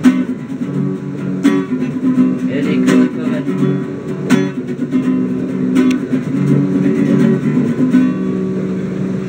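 Nylon-string classical guitar played solo, chords ringing, with a few sharp percussive strums about every second and a half.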